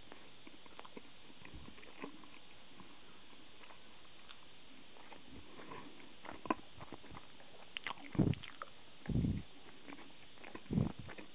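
Soft tearing and squishing of an oni-manju steamed bun filled with red bean paste as it is pulled apart by hand, with scattered faint clicks and three dull thumps near the end.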